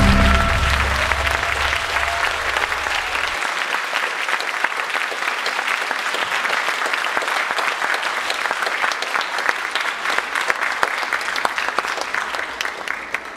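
Audience applauding, as the last notes of the music fade out in the first second. The clapping carries on steadily and dies away near the end.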